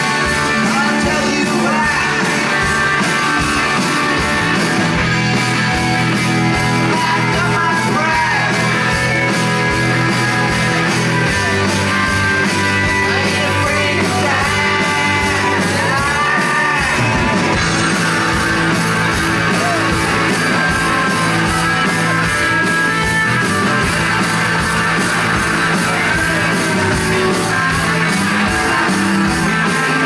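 Live rock band playing: electric guitar, bass guitar and drum kit with a steady beat, and a male lead vocal singing over them in stretches.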